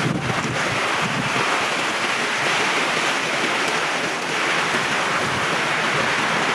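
Torrential rain pouring down onto wet concrete paving, a steady even hiss.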